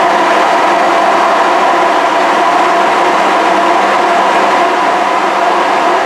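Cecotec Conga Rockstar Nebula self-emptying station running its suction motor with a steady, loud whoosh, pulling the dirt out of the stick vacuum's dust bin into the station's bag.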